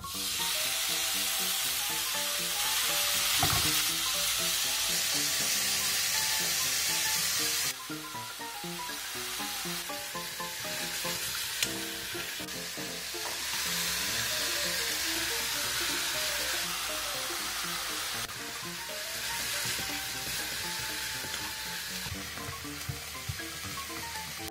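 Sliced bulgogi beef sizzling as it hits a hot nonstick pan, then frying steadily while it is stirred with wooden chopsticks.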